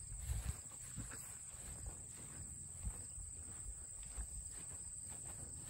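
Steady high-pitched insect chorus in a grass field, with irregular low rumbling bumps underneath.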